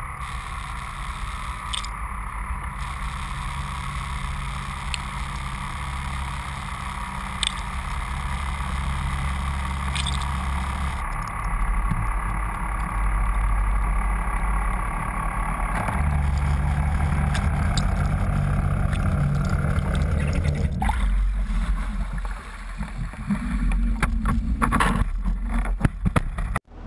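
Lobster boat's engine running with a steady low hum and water noise. There are a few sharp knocks near the end.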